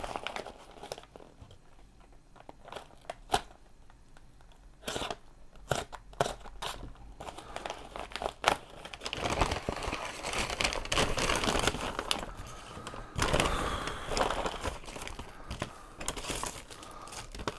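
Brown paper bag rustling and crinkling as it is handled and opened. A few sharp separate crackles come first, then steady rustling from about halfway through.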